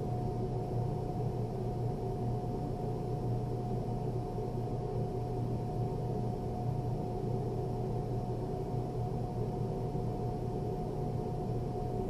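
A skid-steer loader's engine running steadily: a low, even drone with a faint steady whine above it.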